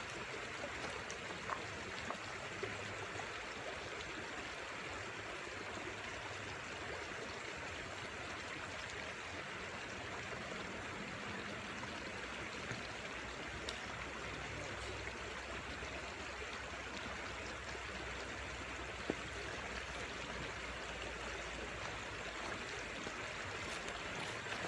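Steady rush of river water running over rocks, with a few faint clicks of footsteps on the stones.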